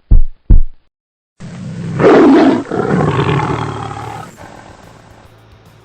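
Two deep thumps like a heartbeat, then after a brief silence a loud big-cat roar that swells and fades over about three seconds.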